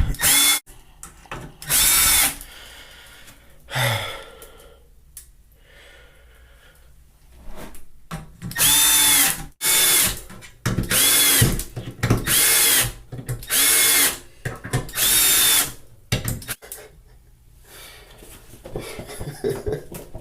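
Milwaukee M12 cordless hex screwdriver running in short bursts, driving 1-inch drywall screws into wood. Each burst is a whine that rises and then drops in pitch as the screw seats. There are about eight bursts, most of them in quick succession in the second half.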